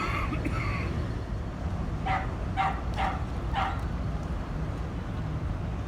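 A dog giving a yelp, then four short yipping barks about half a second apart, over a steady low rumble.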